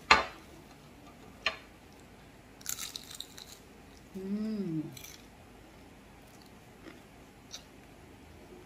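A crisp fried lumpia wrapper crunching as it is bitten into, about three seconds in, followed by a short hummed "mmm" and quiet chewing.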